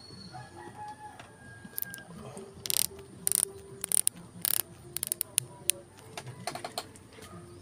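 Rooster crowing and chickens clucking, with a series of sharp clicks from about two and a half seconds in.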